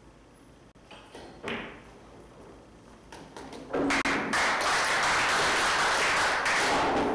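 Pool balls clicking as a shot is played about a second in, then from about four seconds in a small audience applauds for about three seconds.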